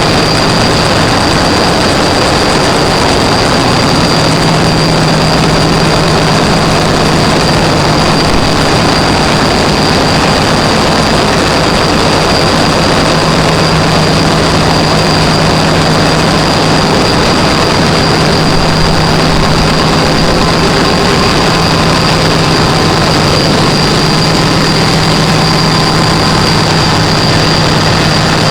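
Gas-engine generator set running steadily under power: a loud, even engine noise with a low hum and a thin, steady high whine above it.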